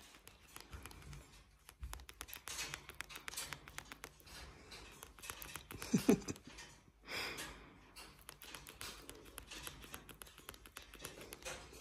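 Cockatoo clicking and grinding its beak close by: quiet, rapid dry clicks and scrapes, with one short vocal sound about six seconds in.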